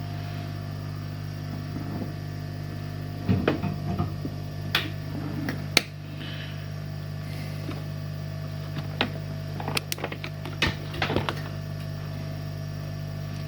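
Small clicks and light knocks of tools and a component being handled on a workbench, in two clusters, over a steady low electrical hum.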